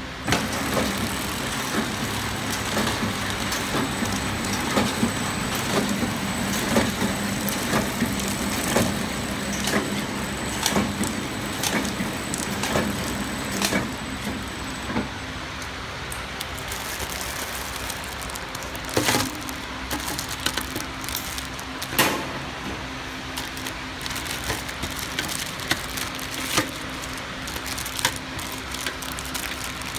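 KT-250 flow-wrapping packing machine running steadily, with a sharp click or knock about once a second from its working cycle. A thin high whine sounds through the first half and stops partway, and two louder knocks come later on.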